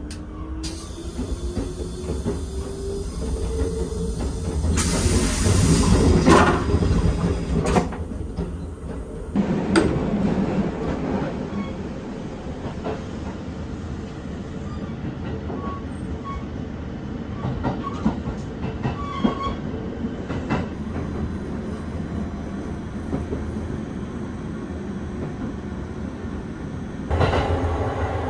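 Train toilet flushing after its push button is pressed: a rising whine for about four seconds, then a loud rushing whoosh lasting a second or two. After that, the steady running noise of the Vista Car limited express train on the rails, which swells again near the end.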